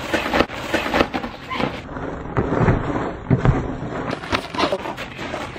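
Inflatable Socker Boppers vinyl boxing pillows thumping and slapping in quick, irregular hits, several a second, with scuffing and shuffling underneath.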